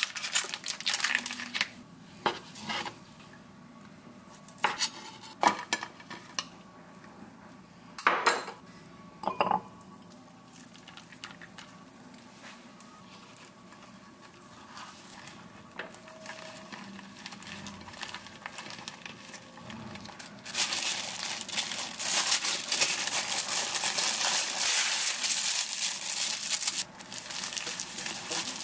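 Kitchen preparation sounds: scissors snipping open a plastic pack of sauced chicken breast, then scattered knocks and clinks of utensils and a plate. About twenty seconds in comes a loud stretch of about six seconds of crinkling plastic wrap as the rolled tortilla wrap is wrapped, and a knife cuts through the wrapped roll near the end.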